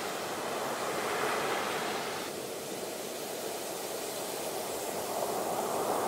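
Ocean surf: waves breaking and washing up the beach in a steady hiss, easing a little about two seconds in and swelling again near the end.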